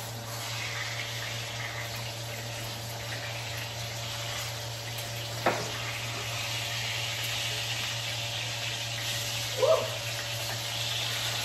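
Steak sizzling steadily in a hot frying pan as it is turned over with a fork, the sizzle growing a little louder near the end. A sharp click comes about halfway through and a short knock near the end.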